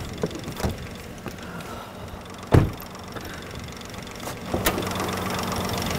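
A car door slams shut about two and a half seconds in, and a smaller click comes near the end as the hood latch is released, over the car's engine idling steadily, louder in the last second or so. The engine is running poorly, its power cut as if in limp mode, which the video puts down to failed variable valve timing (VVT) solenoids.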